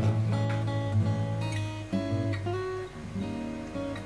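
Background music: a strummed and plucked acoustic guitar playing a steady run of notes.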